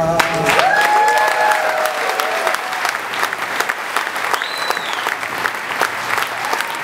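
Concert audience applauding and cheering, with shouts in the first couple of seconds and a whistle about halfway through.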